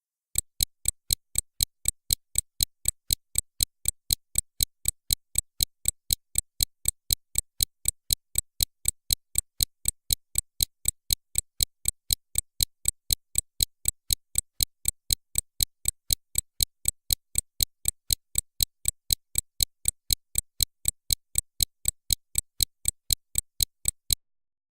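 Pocket watch ticking: sharp, bright, even ticks at about three a second, which stop abruptly near the end.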